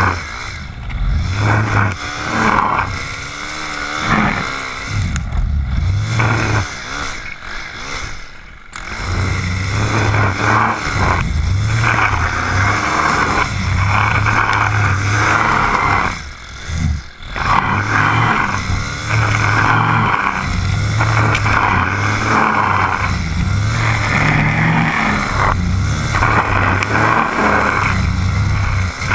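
Stihl FS 130 brushcutter's 4-MIX engine running at cutting speed while mowing grass, the revs rising and falling as the throttle is worked. Its revs drop briefly twice, about a third of the way in and again about halfway, then pick back up.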